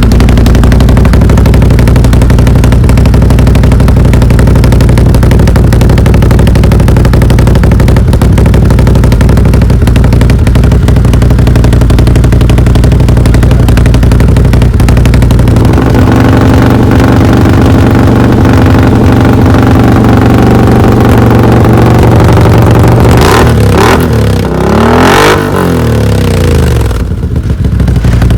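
Can-Am Outlander 850's Rotax V-twin, fitted with a Yoshimura slip-on exhaust, running steadily at idle. Its tone changes about halfway through, and the revs rise and fall a few times near the end.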